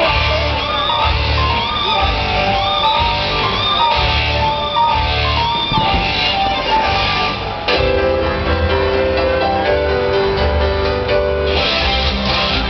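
Music with a steady low beat and a melody line; about eight seconds in it changes to longer held notes.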